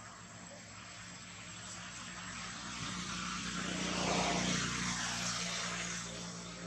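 Engine noise of something passing by, swelling to its loudest about four seconds in and then fading away.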